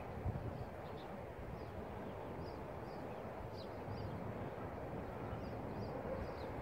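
Steady wind noise rumbling on the microphone outdoors, with faint, irregular chirps of small birds.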